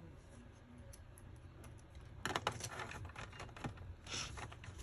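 Quick runs of light, sharp clicks and taps from laptop parts being handled during a repair. One burst starts about two seconds in and another comes near the four-second mark.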